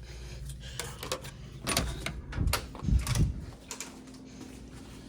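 A run of separate clicks and knocks in a small room, heaviest between about one and a half and three and a half seconds in, then quieter.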